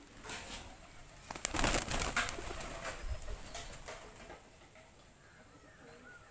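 A flock of domestic pigeons: a noisy flurry of flapping wings about a second and a half in, then faint cooing.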